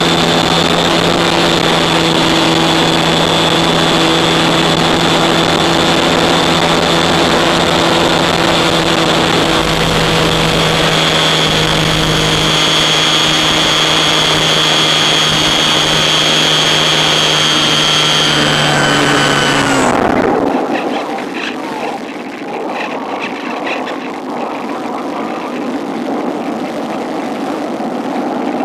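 Electric motor and propeller of a Cularis RC motor glider running steadily under power with a constant whine, then throttled off about 20 seconds in, the pitch sliding down as the motor stops. After that only a quieter rush of air past the gliding airframe remains.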